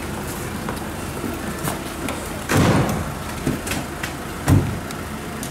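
Minivan doors being shut: a longer thud about two and a half seconds in and a sharp, low thud about two seconds later, over a steady outdoor background.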